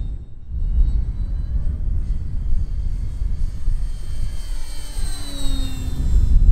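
Radio-controlled model plane's motor and propeller whining as it makes a low pass, the pitch dropping as it goes by about five seconds in. Wind rumbles heavily on the microphone throughout.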